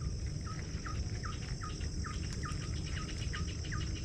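A bird calls a rapid, even series of short falling notes, about three or four a second, over the steady high drone of insects.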